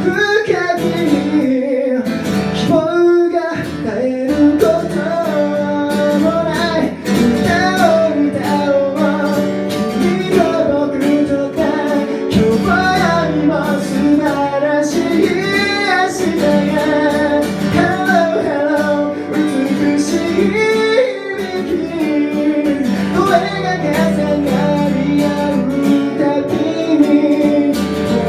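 A song with strummed acoustic guitar and a singing voice carrying a melody.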